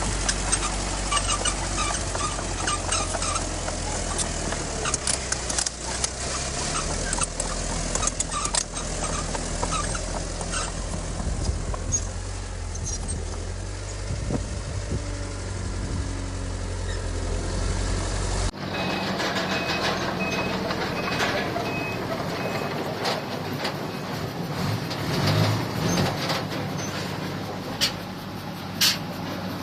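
Heavy diesel earthmoving machinery running with a steady low rumble and repeated metallic clanks. Partway through, it changes abruptly to a reversing alarm beeping over a lighter engine sound, as a dump truck or dozer backs up.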